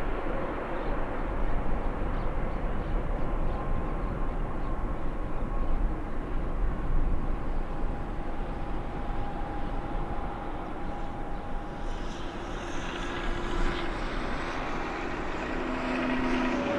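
Jet airliner engine noise: a steady rush with faint, steady whining tones.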